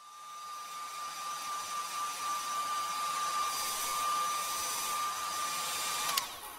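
Hair dryer blowing: a steady rush of air with a high motor whine, swelling over the first couple of seconds. Near the end it is switched off with a click and the whine drops away.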